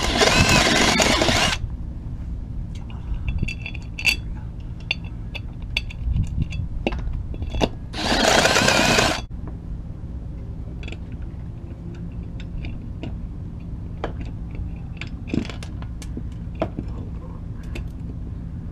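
Cordless drill running in two short bursts, drilling out holes in a steel ATV wheel rim: once for about a second and a half at the start, then again for about a second some eight seconds in. Between and after, scattered light metal clicks and knocks as the wheel is handled.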